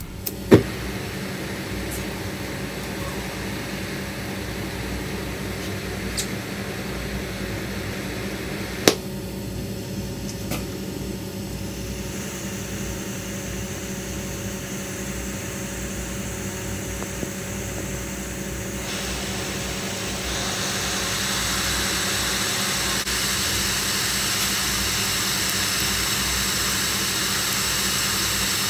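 Oxygen-propane torch flame hissing steadily on a rusty iron railway nail, growing louder and harsher about two-thirds of the way through. A couple of sharp clicks come in the first ten seconds.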